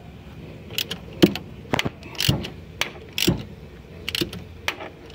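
Socket ratchet being worked on a puller's centre bolt to draw a crankshaft pulley off, giving short metallic clicks and clinks about every half second.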